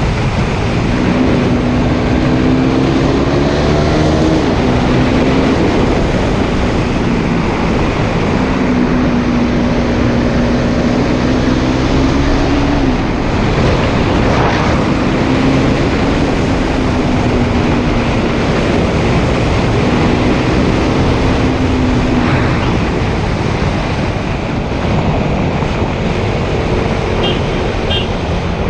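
KTM Duke 390's single-cylinder engine, on its stock exhaust, running under way. Its note climbs and drops several times with the throttle, holding steady for stretches, over heavy wind and road noise on the helmet or bike-mounted camera's microphone.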